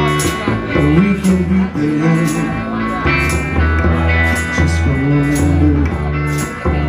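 Live band playing an instrumental passage of a rock song: electric guitar and upright bass over a steady beat.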